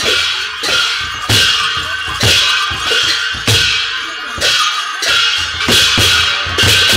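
Drum and clashing hand cymbals playing a steady, loud beat of about two strikes a second, each cymbal crash ringing on; typical of the traditional Newar drum-and-cymbal music that accompanies a Lakhey dance.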